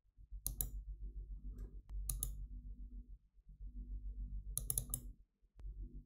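Computer mouse clicking: a quick pair of clicks about half a second in, another pair about two seconds in, and a run of several clicks near five seconds, over a low hum.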